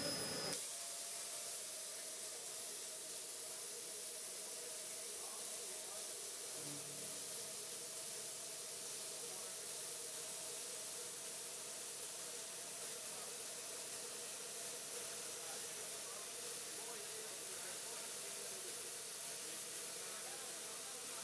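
CNC milling machine slot milling with a solid-carbide end mill: a steady hiss with a steady hum of a couple of tones beneath it, settling in about half a second in.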